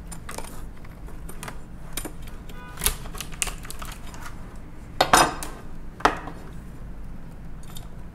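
Knife working into a live Maine lobster's shell at the claw joint on a wooden cutting board: scattered sharp clicks and cracks of blade on shell and board, the loudest about three, five and six seconds in.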